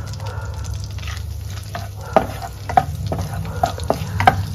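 Butter melting and sizzling in a non-stick kadhai, with a wooden spatula stirring it and knocking against the pan several times from about two seconds in. A steady low hum runs underneath.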